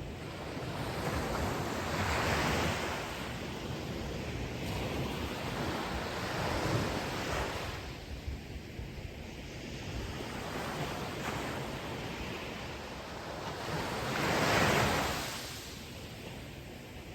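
Ocean waves breaking on the shore: surf noise that swells and ebbs, with three main surges, the last and loudest near the end.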